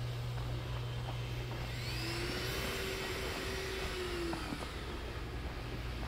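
A car passing on a residential street: tyre noise and a whine swell and fade over about three seconds. A steady low hum sits underneath.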